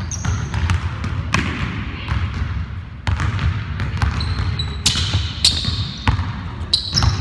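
A basketball bouncing on a hardwood gym floor, with players' footfalls and sneakers squeaking briefly on the floor a few times, mostly in the second half.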